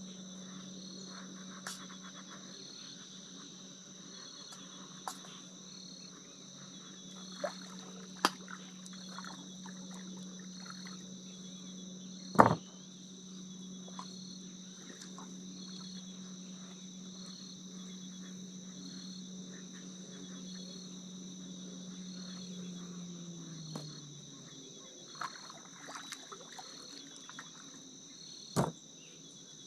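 Chorus of crickets trilling steadily at two high pitches. A low steady hum stops about 24 s in, and a few sharp knocks come through, the loudest about halfway.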